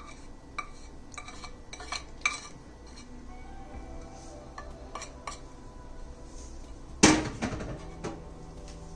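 Spoon and kitchen bowls clinking as spices and salt are measured into a dal batter: a run of light taps and clicks, then one louder ringing clang about seven seconds in. Faint background music underneath.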